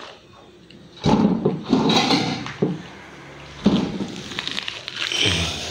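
Paint roller worked back and forth through wet wall paint on a plywood panel, in several uneven strokes.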